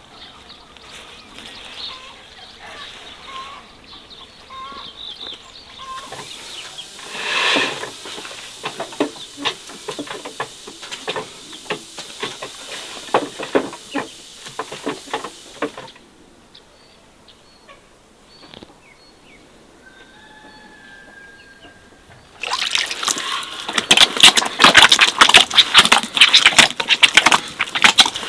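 Hands working a large batch of wet potato bread dough in a metal basin: dense sticky squelching and slapping, loudest and busiest in the last few seconds. A quieter stretch in the middle holds a few short bird chirps.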